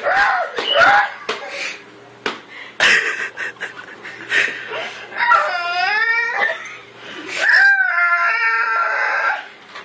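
A young child's high-pitched vocalizing: a quick run of short sing-song cries mixed with a few sharp smacks at the start, then a wavering, sliding squeal about halfway and a long held wail near the end.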